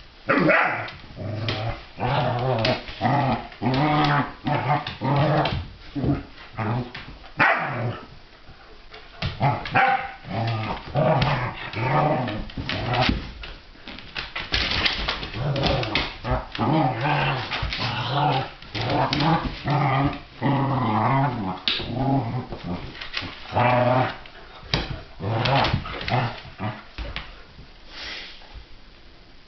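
Two dogs play-fighting, a Bernese mountain dog puppy and a long-haired light-coloured dog, growling and barking in many short, irregular bursts. The noise thins out near the end.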